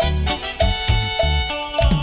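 Live band playing an instrumental passage of Latin dance music: a steady beat with bass and held notes above it, no singing.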